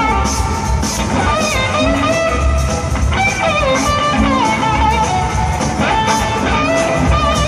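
Live rock band playing an instrumental jam: electric guitars carry a lead line of notes that bend and slide, over bass and drums.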